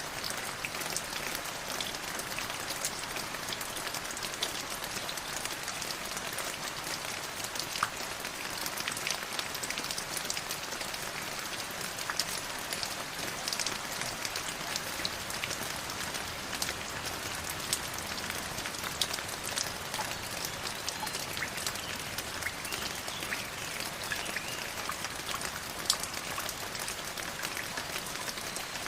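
River water flowing: a steady rushing hiss dotted with many small splashes and drips.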